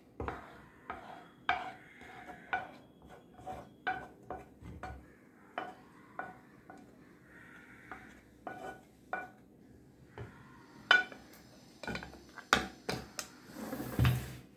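Steel spoon scraping and clinking against a coated pan while thick condensed milk is scraped out into a dish: irregular short scrapes and clicks, with a louder clatter near the end.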